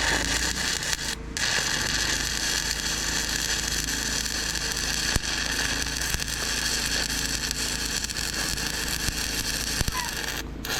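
Arc-welding crackle from a stick welder burning a 3/32-inch rod, a steady frying hiss. The arc breaks off briefly about a second in and again near the end.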